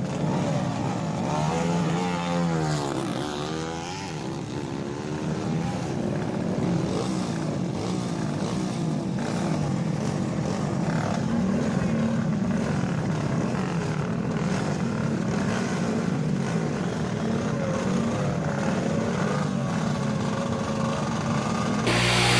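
Motorcycle engines running and revving, their pitch swooping up and down a few seconds in, then settling into a steady drone.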